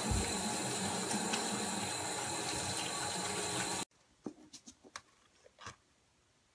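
A steady rushing noise that cuts off abruptly about four seconds in, leaving only a few faint clicks and small handling sounds.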